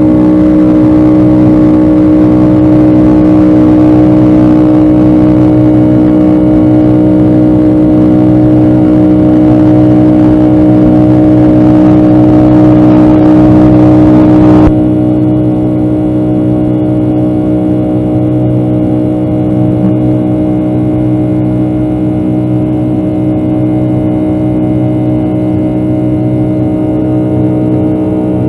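Boeing 757-200 engine and airflow noise heard from inside the cabin: a steady drone with several held tones over a rushing hiss. About halfway through, the hiss drops away suddenly and the whole sound gets quieter, while the engine tones carry on unchanged.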